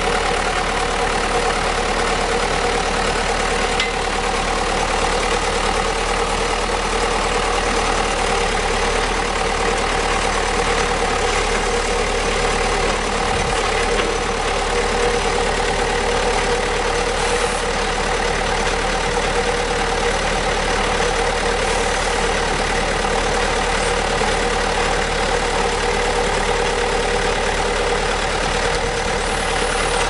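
A 2001 Ditch Witch trencher's engine running steadily at an even speed while its hydraulics work the backhoe boom.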